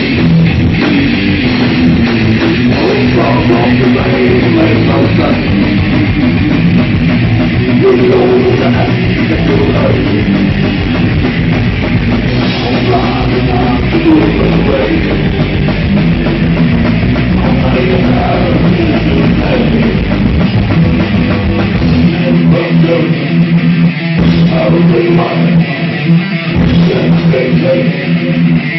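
Three-piece rock band playing live: electric guitar, bass guitar and drum kit, loud and steady. Near the end the deepest bass thins out for a few seconds.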